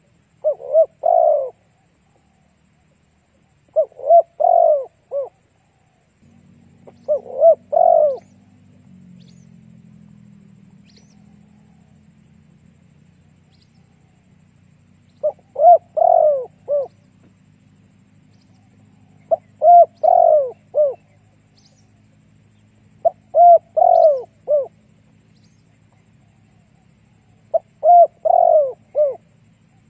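Spotted dove (cu gáy) cooing: repeated short phrases of three or four coos each, one every few seconds, with a longer pause in the middle.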